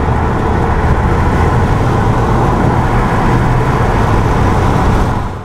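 Engine and road noise inside a moving car's cabin as it picks up speed. The sound is a loud, steady low rumble that fades out at the end.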